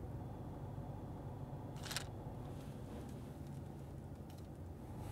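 Low, steady hum of a car's cabin, with one brief noise about two seconds in.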